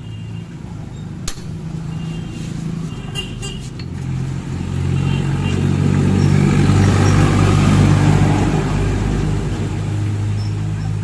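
A motor vehicle's engine running steadily, growing louder over several seconds and then easing off. A few sharp clicks sound in the first few seconds.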